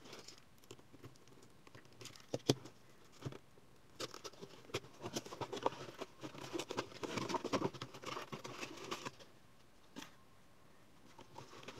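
Cardboard box being opened by hand: flaps and a cardboard insert lifted, with irregular rustling, scraping and small clicks, and one sharper snap about two and a half seconds in.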